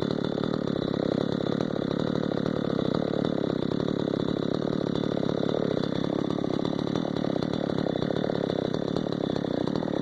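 Tekna CS 58 chainsaw's 54 cc two-stroke engine running steadily at an even speed, with no revving.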